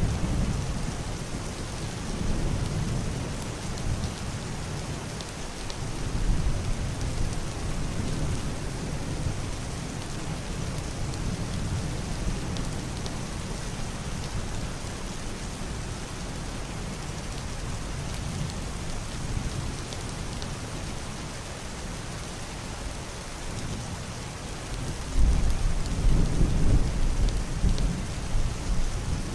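Heavy rain falling steadily on a roof and window, with low muffled thunder rumbling underneath; a louder roll of thunder begins near the end.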